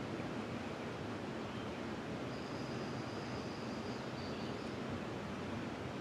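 Steady rush of flowing river water. A thin, high bird note is held for about two seconds in the middle.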